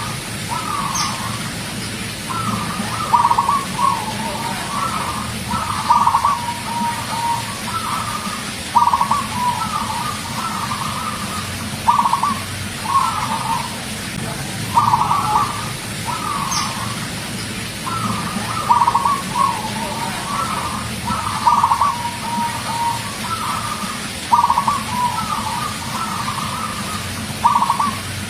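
Zebra dove (perkutut) singing its staccato cooing song: a phrase of quick, clipped notes repeated about every three seconds, over a steady low hum.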